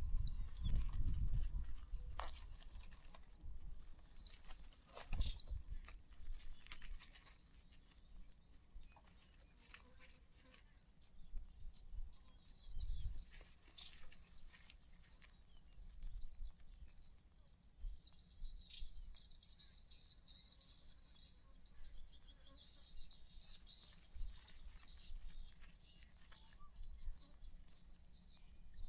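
Small birds chirping in short, high, rapidly repeated chirps, two or three a second, without a break. A faint steady hiss joins from about the middle for several seconds, and there are a few low thumps near the start.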